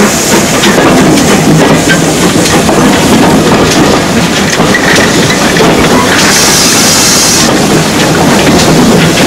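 Steam-hauled train running, heard from an open carriage window: steady rolling noise with wheels clicking over the rail joints. A brief hiss comes in about six seconds in and stops about a second later.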